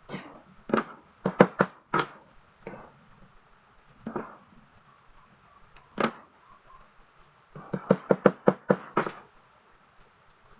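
Sharp hammer blows on wooden chair parts being knocked together in assembly: a few separate strikes, then a quick run of about a dozen rapid taps near the end.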